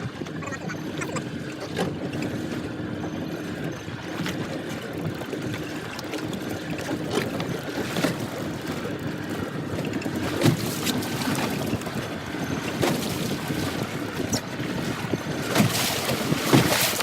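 Fishing boat on the water: a low steady hum with water splashing and knocking against the hull, and wind buffeting the microphone, strongest near the end.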